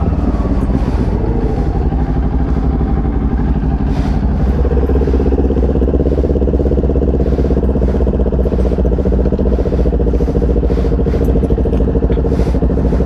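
Motorcycle engine running steadily while riding, with heavy low rumble. The engine note climbs about four seconds in and then holds steady.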